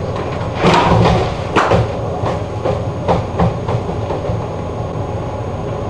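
Wheeled canvas laundry cart rolling and rattling across a hard floor, with irregular clunks, over the steady hum of laundry-room machinery.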